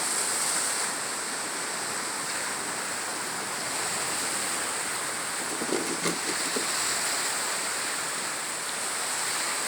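Steady wash of sea surf, an even rushing noise without a break, with a faint short voice about six seconds in.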